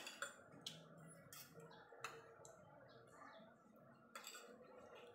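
Faint, scattered clicks and light scrapes of a metal fork and spoon against a ceramic plate as food is cut and gathered.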